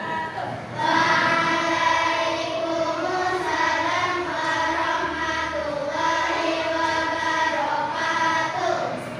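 A group of children singing a song together in unison, starting about a second in and stopping near the end.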